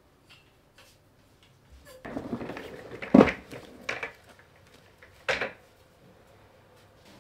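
A swivel office chair being moved and set down: a scraping rumble about two seconds in, then a loud knock, followed by two sharper knocks.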